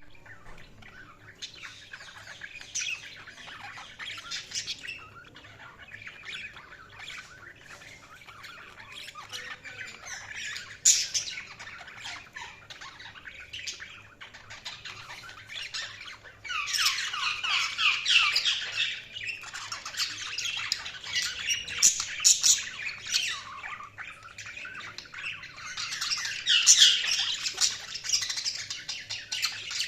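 Budgies (budgerigars) chattering and warbling, several birds at once, with squawks and chirps. The chatter grows louder and busier about halfway through and again near the end, with one sharp loud call about eleven seconds in.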